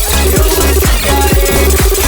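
Loud electronic dance music with a heavy bass line and a fast, steady drum beat of about four hits a second.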